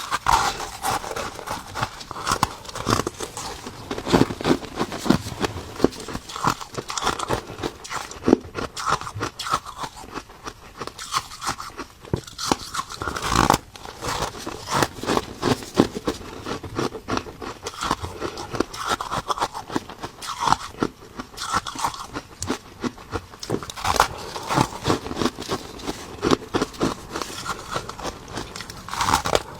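Close-up crunching of ice being bitten and chewed, a dense run of crisp cracks and grinding crunches with heavier bites every second or so.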